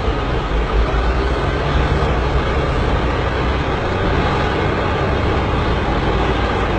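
Heavy diesel earthmoving machines (bulldozers or loaders) running steadily with a deep engine drone.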